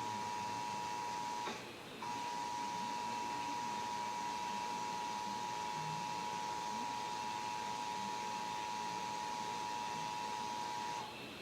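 Emergency Alert System attention signal: the steady two-tone alarm (853 Hz and 960 Hz sounding together) of the National EAS Test, heard off a broadcast receiver. It drops out for about half a second a second and a half in, then resumes and cuts off near the end.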